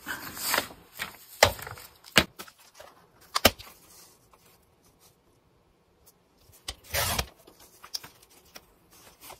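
Cardstock sheets handled and squared on a paper trimmer, with a few sharp taps, then the cutter head of a Fiskars paper trimmer drawn along its rail about seven seconds in, a short scraping rasp as it slices through the stack.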